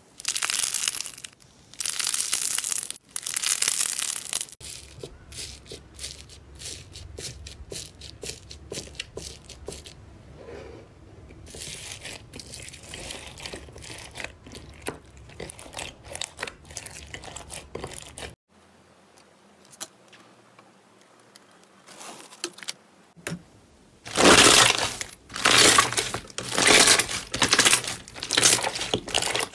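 Hands working slime with crackling, crunching and squishing. There are three loud crunchy stretches of airy purple slime at first, then a long stretch of softer crackling clicks as green slime with beads is kneaded in a glass dish. After a quiet pause, a run of loud crackling squishes comes as clear pink slime is pressed flat.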